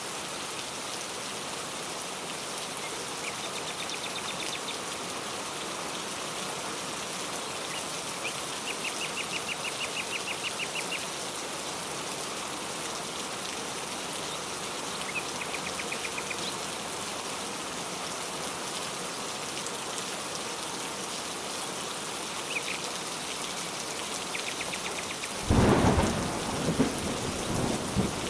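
Steady rain falling, with a bird singing short, rapid trills of repeated high notes several times. Thunder rumbles in loudly near the end.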